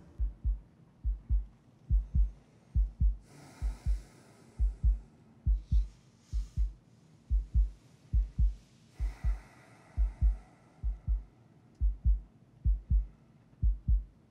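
Heartbeat sound effect: a steady lub-dub pulse of paired low thumps, about seventy beats a minute.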